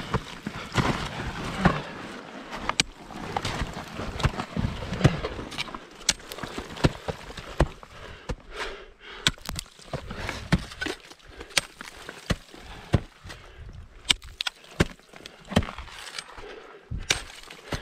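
Ice tools and crampons chopping and kicking into rime ice, in a string of sharp, irregular knocks over scraping and crunching.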